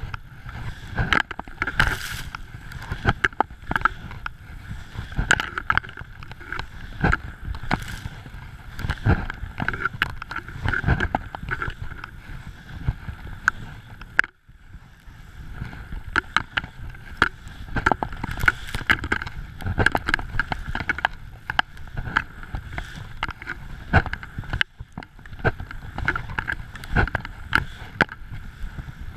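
Skis running through deep powder snow, heard close from a camera mounted on the skier: a rough, uneven rush of snow, broken by frequent knocks and thumps as the skier turns. The sound drops out for a moment about halfway through.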